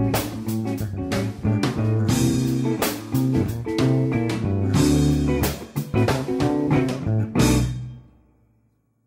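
Instrumental background music with guitar, bass and drums. It ends on a last hit about three-quarters of the way through, which fades out to near silence.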